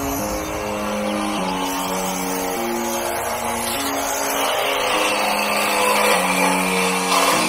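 Background music with a simple stepped melody, over a noisy rushing sound that grows louder near the end.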